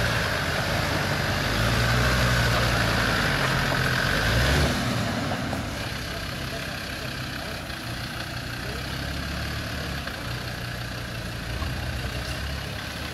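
Land Rover Defender's engine working under load as the 4x4 crawls up a steep rocky track, louder for the first four seconds or so, then easing off to a lower, steadier note.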